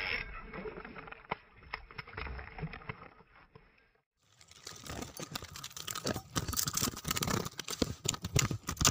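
Close rustling and crackling handling noise with many small clicks and scrapes; it breaks off briefly about four seconds in and comes back louder and crisper.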